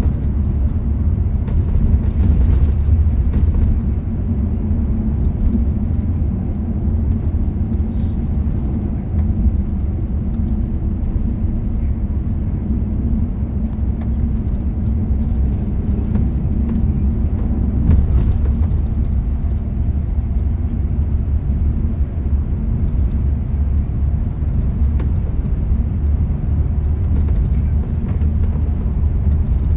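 Steady low rumble of a car driving along a road, with engine and tyre noise holding level throughout.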